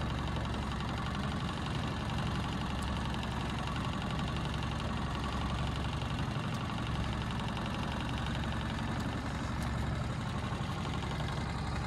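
Small outboard motor idling steadily, a low even hum with a fast regular ticking.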